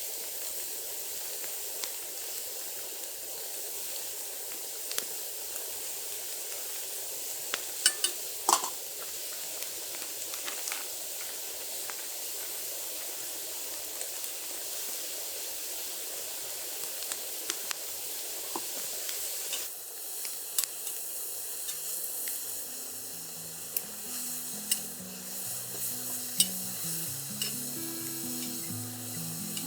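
Food sizzling in a hot pan: a steady frying hiss with a few sharp clicks and pops. Soft background music comes in at about 20 seconds.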